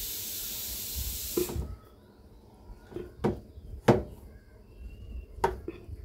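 Hot knife blade hissing as it melts into a PVC pipe wall, the hiss cutting off abruptly after about a second and a half. A few faint clicks follow as the blade is twisted in the hole.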